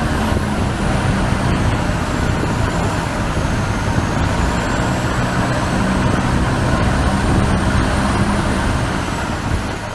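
Boat engine running steadily while under way, a loud continuous drone with a faint high whine that wavers in pitch.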